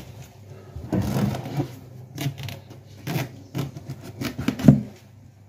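A sharp knife cutting through a large raw winter squash: a string of irregular crunching, cracking strokes, the loudest one near the end.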